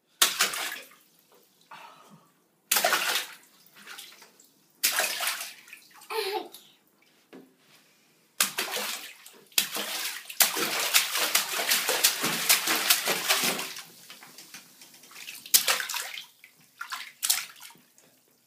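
Bathwater splashing and sloshing as a toddler slaps and moves in a filled bathtub, in irregular bursts, with a longer run of steady splashing about halfway through.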